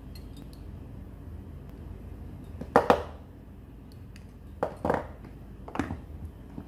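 Pliers clicking and clattering against a small drill housing as they work a switch leg, then being set down on a wooden desk: a few sharp knocks with a short ring, about three, five and six seconds in.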